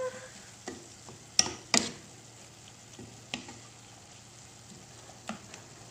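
Pork mince frying in a pan with a faint steady sizzle, stirred with a wooden spoon that knocks against the pan several times, loudest a little under two seconds in.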